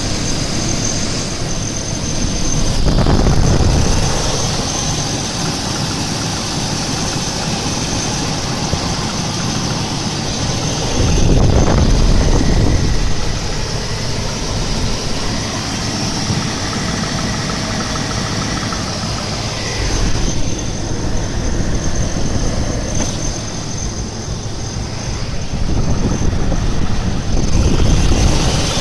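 Chevy 350 small-block V8 running just after start-up, with a knocking sound that the owner cannot identify and that appears only when the engine starts after sitting overnight. It gets louder for a second or two several times: about three seconds in, around eleven seconds, around twenty seconds, and again near the end.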